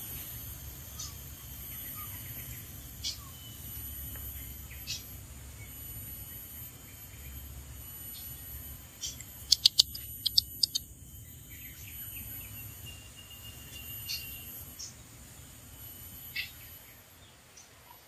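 Oriental magpie-robin giving short, sharp call notes every second or two, over a steady low hum. About halfway through there is a quick run of loud sharp clicks.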